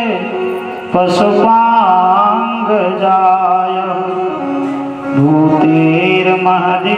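A male voice sings a Sanskrit verse as a slow, melodic devotional chant, drawing out each phrase in long held notes over instrumental accompaniment. A new phrase begins about five seconds in.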